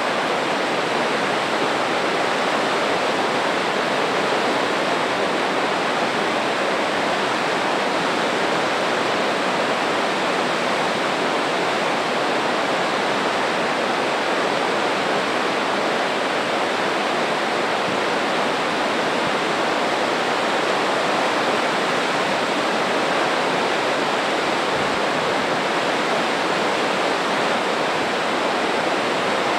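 The Spokane River rushing through whitewater below Spokane Falls and a dam spillway in high flow: a steady, unbroken rush of falling and churning water.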